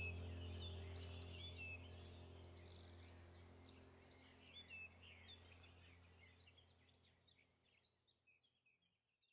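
Background soundtrack of bird-like chirping over a low steady drone, fading out gradually to silence near the end.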